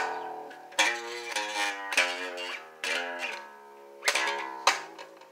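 Guitar chords struck one by one, about five strums, each left to ring. The last chord fades away near the end.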